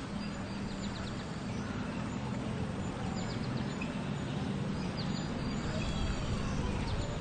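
Ambient backdrop: small clusters of quick, high bird chirps over a steady low murmur.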